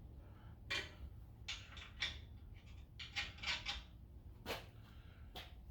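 Light, irregular metallic clinks and clicks of hand tools and bolt hardware being handled while fitting a winch mount to a truck bumper, in short clusters with single taps between.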